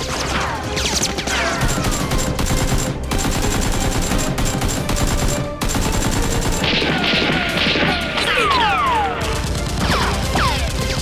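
Rapid automatic gunfire sound effects, shot after shot, with many falling whistles like bullets flying past and ricocheting, over background music.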